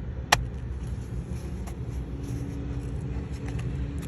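Steady low rumble with one sharp click about a third of a second in, then a faint steady hum and a few light ticks.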